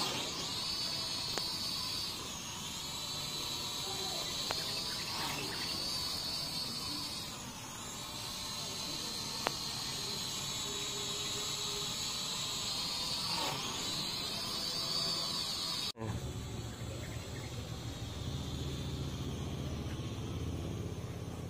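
Syma X5UW-D quadcopter's four small motors and propellers whining in flight, the pitch dropping and rising a few times as the throttle changes. About two-thirds of the way through, the sound cuts abruptly to a low rumble with the whine only faint.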